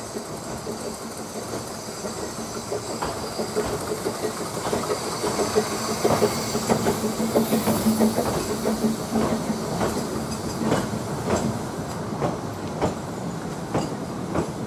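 Narrow-gauge steam train, the Fletcher Jennings 0-4-0 well tank 'Dolgoch' with vintage carriages, running past. Its wheels click rhythmically over the rail joints. The sound grows louder to a peak around the middle as the carriages go by, then eases off.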